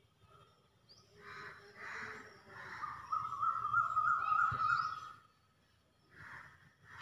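Chalk scratching on a blackboard in short strokes, with birds chirping in the background; a warbling call in the middle is the loudest sound.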